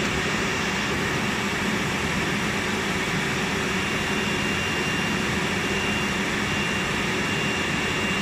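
A steam shrink tunnel and hot-air dryer running: a steady, loud rush of blown air from their fans, with a constant thin high whine over it and a low hum beneath.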